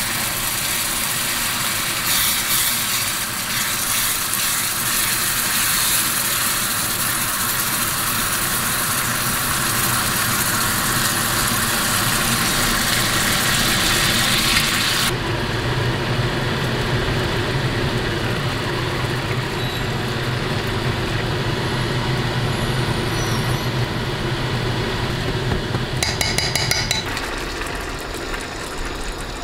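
Rice sizzling in a stainless steel frying pan as it is toasted and stirred with a spatula. About halfway the hiss drops away to a lower bubbling once liquid is in the pan, with a few clicks near the end.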